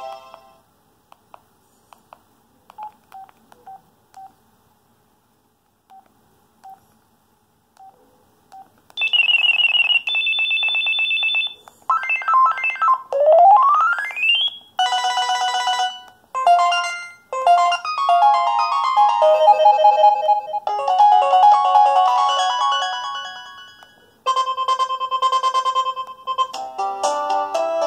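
An LG UX210 cell phone's speaker playing its preloaded ringtones one after another. After several seconds of faint clicks and short beeps come a warbling electronic tone, a rising pitch sweep, and then a run of short electronic melodies, each a few seconds long.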